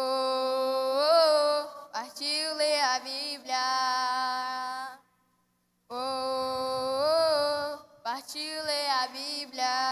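A singing voice giving a short sung phrase, then the same phrase again after a break of silence of about a second, over little or no accompaniment.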